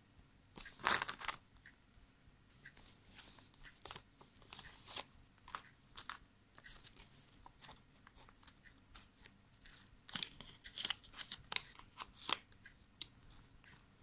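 Small clear plastic zip-lock bag crinkling and rustling as it is handled and opened, in irregular sharp crackles. The loudest come about a second in and again in a cluster near the end.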